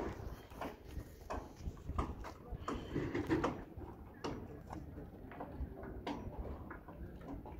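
Scattered light knocks and clicks at an irregular pace over a low, steady rumble.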